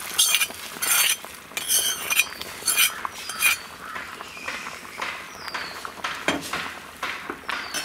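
Metal ladle clinking and scraping against the metal cooking pot as the tempering is stirred into the boiling sambar, several quick clinks in the first few seconds, then fewer, over the bubbling of the sambar.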